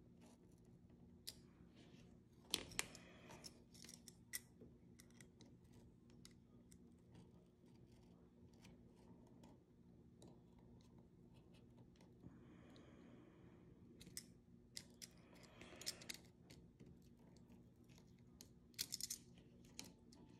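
Hobby-knife blade picking and scraping at vinyl wrap around the small door of a rifle's plastic pistol grip: scattered faint clicks and scratches, with a few sharper ticks, over a low steady hum.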